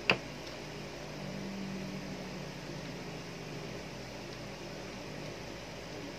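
A single sharp click at the very start as the plastic screwdriver-bit holder is handled, then a steady low hum.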